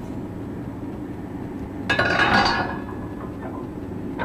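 Glass-fronted wood stove door swung shut with a metallic clank and rattle about two seconds in. A steady hum from the stove's blower fan runs underneath.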